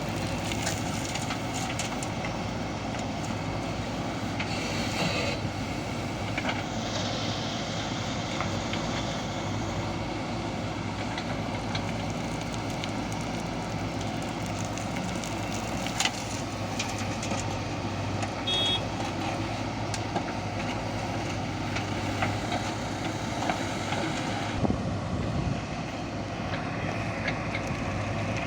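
JCB 3DX backhoe loader's diesel engine running steadily while it works, with a few short sharp knocks from the machine.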